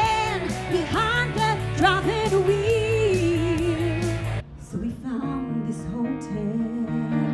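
A woman singing a pop song into a microphone over a band with a steady beat, her voice wavering with vibrato. About four and a half seconds in it cuts abruptly to a slower, softer song with long held notes over sustained backing chords.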